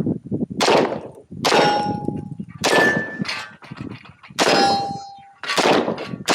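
Gunshots fired at steel targets, about six strikes roughly a second apart. Several are followed by the clear ringing tone of a hit steel plate.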